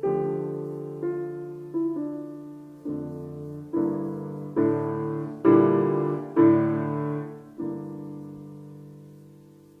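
Background piano music: slow chords, each struck and left to fade, growing fuller in the middle and ending on a long held chord.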